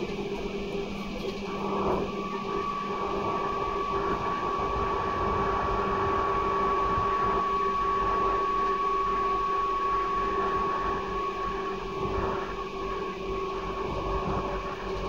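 JR Kyushu 811 series electric train running. Its outer-fan-cooled traction motors give a steady high whine over a lower hum, with the rumble of wheels on rail underneath.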